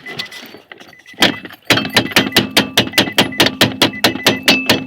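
Hammer striking the steering-column lock box of a 2009 Nissan Altima: one knock, then a fast run of rapid taps, about six a second, with a faint metallic ring. The blows are meant to free the stuck lock unit that keeps the push-button start from working.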